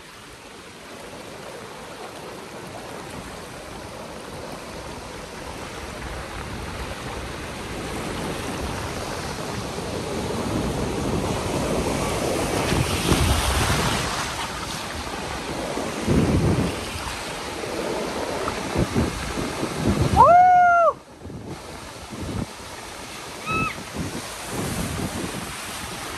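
Ocean surf washing onto a beach, its rushing noise swelling and easing as the waves come in. About twenty seconds in, a short high call rises and falls, the loudest sound here, and a fainter short tone follows a few seconds later.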